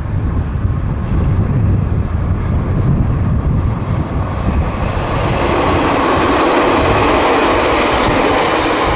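Ichibata Electric Railway 3000 series two-car electric train, a former Nankai 21000 series set, approaching and passing close by, its wheels running on the rails. The train noise builds about halfway through and is loudest near the end as the cars go past.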